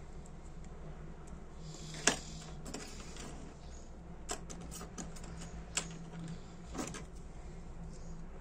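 Small metal tools clicking and tapping on a brass Dunhill Rollagas lighter as it is taken apart, about five sharp clicks with the loudest about two seconds in. A faint steady low hum runs underneath.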